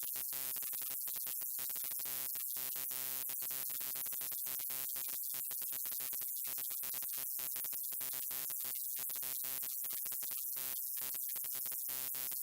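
Electrical buzz of a neon light: a steady hum with many overtones and a hiss on top, cutting out for split seconds many times at irregular intervals.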